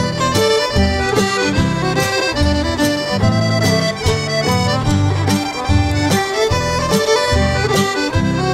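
Background folk music led by an accordion, with a steady beat in the bass.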